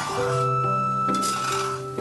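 Background music over a metal spatula scraping and clinking in a nonstick frying pan, stirring peanuts and salt as they dry-roast.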